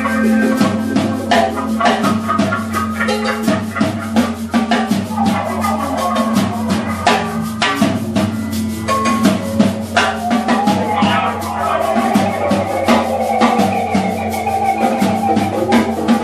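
Dub band playing a live instrumental intro: a drum kit keeps up dense snare and cymbal hits over a held low bass note, with keyboards.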